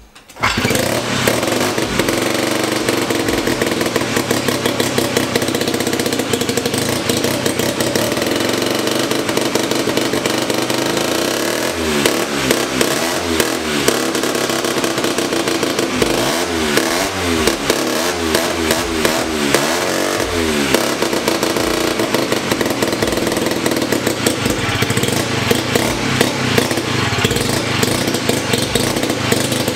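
1975 KC27 294cc rotary motorcycle engine running on a stand. Its sound comes in suddenly about half a second in, and it is revved up and down several times between about twelve and twenty seconds in.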